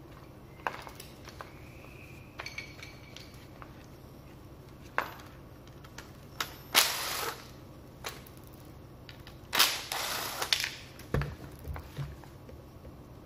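Makita TD110D 12 V cordless impact driver run in two short bursts of about a second each, hammering to loosen screws in a power head's gear housing. Clicks and knocks of plastic and metal parts being handled come before, between and after.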